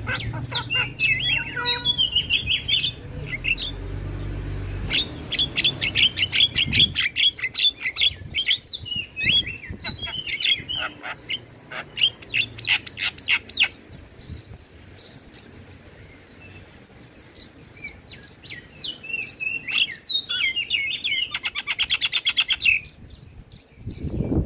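Javan myna calls: harsh chattering and fast rattling trills repeated in runs, with a quieter lull midway.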